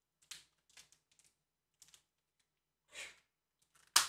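Small clear plastic bag crinkling as it is handled, in a few short separate crackles, with a sharper, louder crackle near the end.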